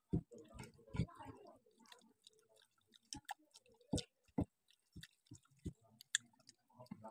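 Close-up chewing and mouth sounds of people eating rice by hand, with scattered soft clicks and taps of fingers and food against steel plates.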